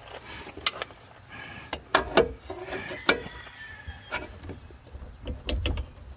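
Socket ratchet with an extension being worked on a leaf spring hanger bolt under the vehicle: irregular clicks and metallic knocks, with no steady rhythm.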